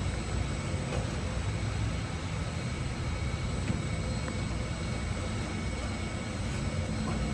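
Steady low rumble of service-shop background noise, with a faint steady high whine above it.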